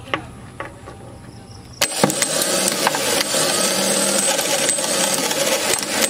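Car starter motor energised from the ignition switch: a solenoid clunk about two seconds in, then the motor spins steadily with no load, its pinion thrown out on the bench. A few light clicks come before it.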